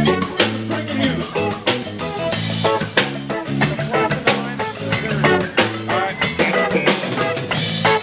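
Live band playing an instrumental passage: a drum kit keeping a steady beat under electric and acoustic guitars and bass guitar.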